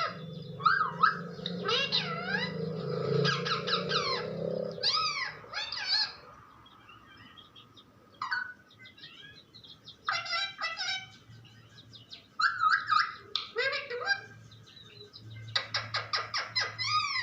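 Pet parrot calling and chattering in clusters of quick, sharply rising and falling squawks and whistles. A low steady hum runs under the calls for the first four seconds or so.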